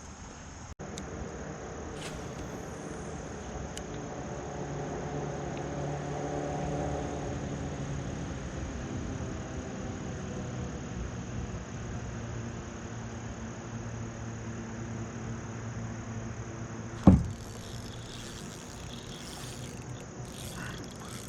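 Steady high-pitched insect chorus, with a motor vehicle passing: a low engine hum that swells and then fades. A single sharp thump about seventeen seconds in.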